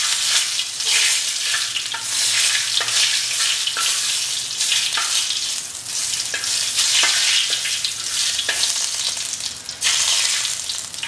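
Bay leaf, cinnamon sticks and cloves sizzling in hot oil in a kadhai, stirred with a spatula that ticks and scrapes against the pan.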